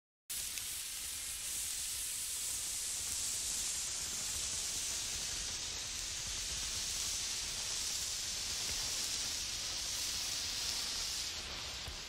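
Steady, even hiss like static, high-pitched and with no rhythm or tones, cutting in abruptly a moment in.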